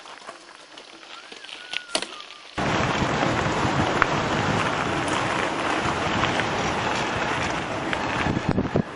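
Wind rushing over the microphone of a camera riding on a mountain bike downhill, with tyre noise from the track. It cuts in suddenly about two and a half seconds in, as a loud, even rush, after a quieter stretch with only faint clicks.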